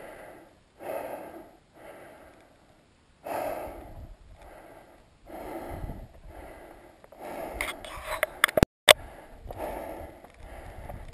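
A hiker breathing hard in and out, about one breath a second, while climbing a steep mountain trail. Near the end comes a quick cluster of sharp clicks and knocks, and the sound cuts out for a moment.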